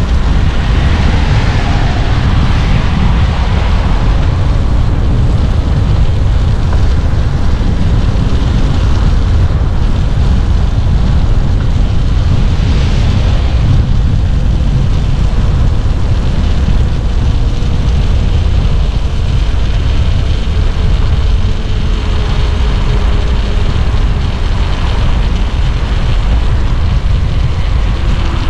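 Steady loud wind rumble on the microphone of a Stromer ST2 speed pedelec at riding speed.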